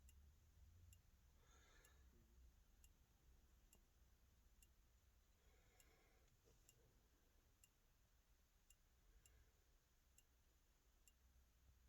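Near silence, with a faint, regular ticking of a little under two ticks a second.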